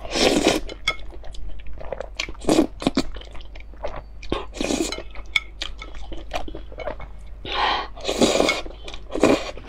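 Noodles being slurped off chopsticks, about five loud slurps with wet chewing and small clicks between.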